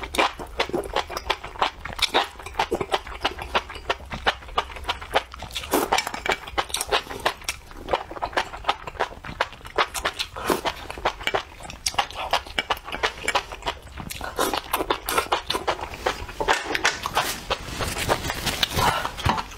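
Close-miked slurping and chewing of enoki mushrooms in spicy chili-oil broth: a dense, irregular run of wet smacks and slurps.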